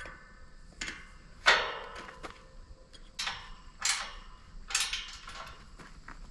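Metal gate hardware being knocked and worked: about five sharp, irregular knocks, each with a short ring.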